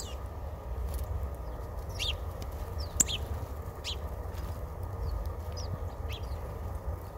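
Small birds chirping, short high calls about once a second, with a couple of sharp clicks and a steady low rumble underneath.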